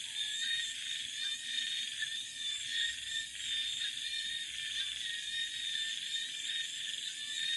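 Dusk chorus of tropical night insects, a dense, steady, many-layered trilling and buzzing.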